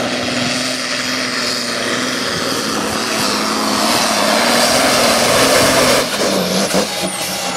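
Competition pulling tractor's engine at full power hauling the weight-transfer sled, loud and building to its peak about five and a half seconds in, then dropping off sharply about six seconds in as the throttle comes off at the end of a full pull.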